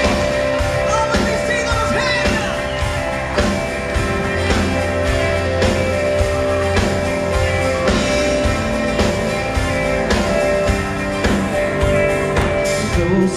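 Live band playing amplified guitars, bass, keyboards and drums, with a steady beat.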